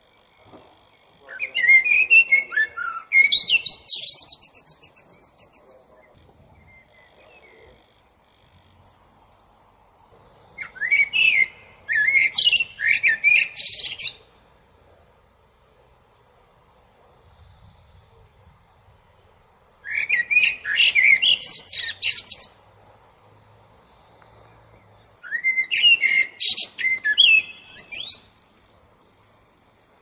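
Common blackbird singing: four separate phrases a few seconds apart, each starting with lower warbled notes and running into a high, squeaky twitter.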